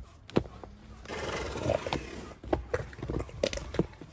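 Elephant seals mating: a bull clasping and mounting a female, with a long breathy, rasping vocal exhalation about a second in and several sharp slaps of flippers and bodies.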